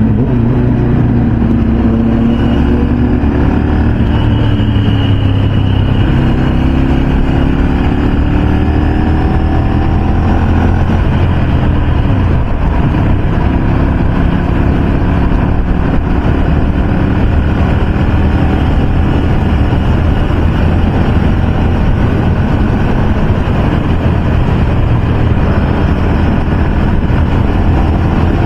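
Ducati motorcycle engine running at highway speed under heavy wind rush; the engine note rises and falls through the first dozen seconds, then holds steadier.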